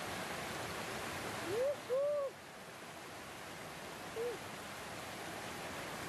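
Shallow stream water rushing steadily over rocks. Cutting through it are two short hoot-like calls that rise and fall in pitch, about a second and a half in, and a third, shorter one about four seconds in.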